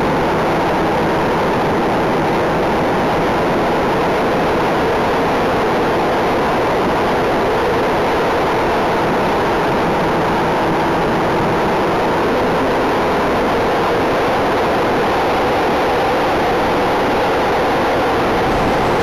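Steady rush of airflow mixed with the drone of the electric motors and propellers of a Parkzone Mosquito RC model plane in flight, picked up by its onboard cockpit camera. The noise holds at one level throughout.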